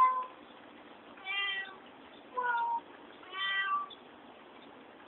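Domestic cat meowing three times, about a second apart, each meow short and pitched.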